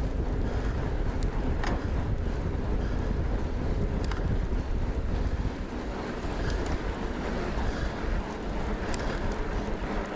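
Wind rushing and buffeting over a chest-mounted camera's microphone as a fat bike is ridden, easing a little after about halfway. A few short sharp clicks from the bike are heard along the way.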